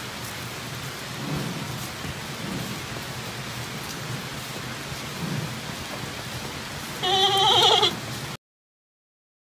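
Giant panda giving one loud, wavering bleat about seven seconds in, over a steady background hiss.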